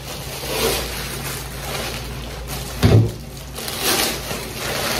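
Plastic wrapping crinkling and rustling as a cooking pot is pulled out of it, with one short knock about three seconds in as the pot is set down on the table.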